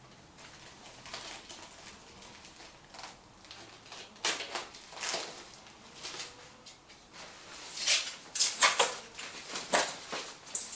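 Packaging being pulled and torn off a bike frame: a series of short rustling, ripping bursts, the loudest and busiest about eight to ten seconds in.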